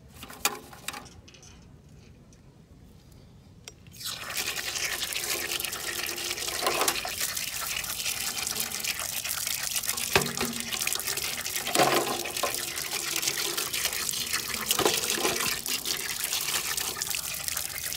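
Water pouring over a small stainless-steel charcoal grill and splashing onto the rocks and dirt below as the ash is rinsed out. The pouring starts about four seconds in, after a quiet stretch with one brief knock.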